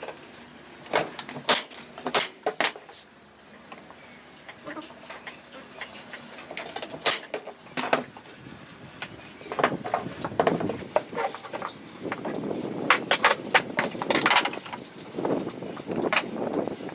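Workshop handling of wood and hand tools: scattered knocks and clicks, then from about ten seconds in a rougher stretch of continuous rubbing or scraping noise with more knocks mixed in.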